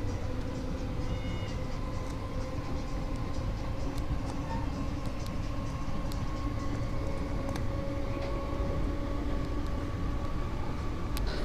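Class 313 electric multiple unit running, heard from inside the carriage: a steady rumble with a motor whine that rises slowly in pitch as the train picks up speed, and scattered clicks from the wheels and running gear.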